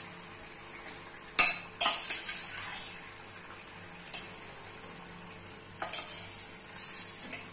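A metal ladle scraping and clinking against an iron kadai as boiled chickpeas are tipped into the masala gravy, with light sizzling from the hot pan. There are five or so separate short strokes, a second or two apart.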